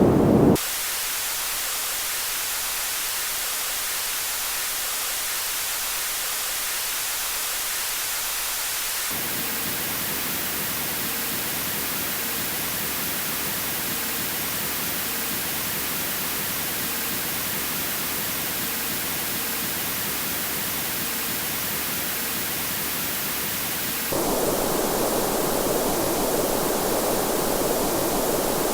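Steady synthesized noise that changes abruptly in steps. It is a thin, high hiss at first, fuller from about nine seconds in, then louder and deeper from about 24 seconds in.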